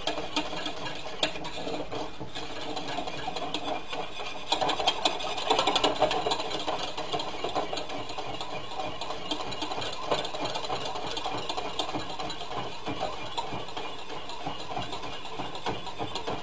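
Beef gravy being stirred briskly in a stainless steel saucepan: a fast, steady rattling scrape of the utensil against the pot's metal sides and bottom, a little louder about five to six seconds in.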